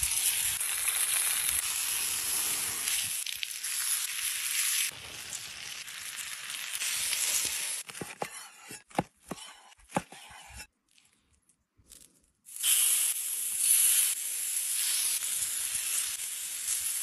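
Meat sizzling on a hot stone slab. About eight seconds in come several sharp knocks of a cleaver cutting the cooked meat on a wooden board. After a short quiet gap, loud sizzling returns.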